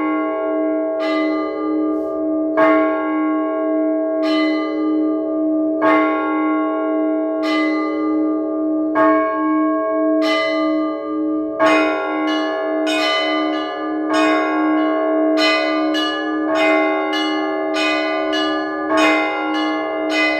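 Russian Orthodox church bells ringing the call to Sunday prayer over a deep, steadily ringing hum. The bells are struck at first about once every second and a half, then about halfway through several bells join in a quicker, denser peal.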